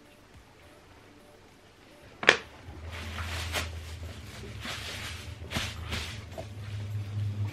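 A sharp knock about two seconds in, then thin plastic carrier bags rustling and crinkling in irregular bursts as they are smoothed flat and folded on a table.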